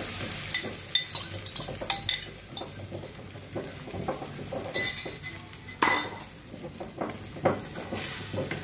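Beaten eggs sizzling as they fry over onion and tomato in a hot nonstick pan. A few sharp clinks of utensils against the pan or bowl come through it, the loudest about six seconds in, and a wooden spatula starts stirring near the end.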